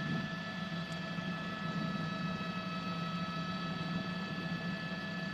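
A steady low drone with several steady high tones above it, unchanging throughout: the background hum of the live broadcast feed.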